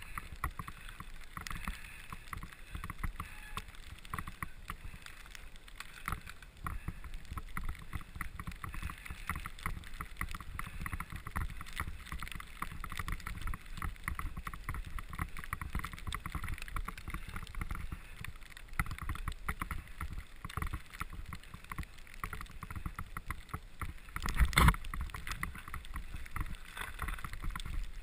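Bicycle ridden over a bumpy snow-covered trail: continuous rumble of tyres on snow with a dense rattle of the bike and camera over the bumps. A hard jolt shortly before the end.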